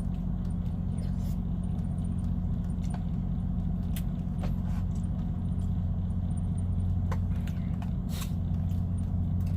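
Semi-truck's diesel engine idling with a steady low hum, with a few faint clicks over it.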